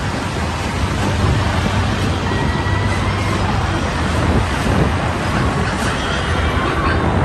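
Steady rushing noise with a low rumble from a flying-simulator ride's soundtrack: the wind-rush effects of gliding on a flying creature over the landscape.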